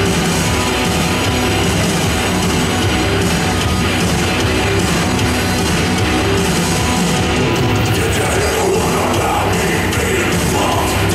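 Loud heavy metal music playing steadily over the sound system of a large hall.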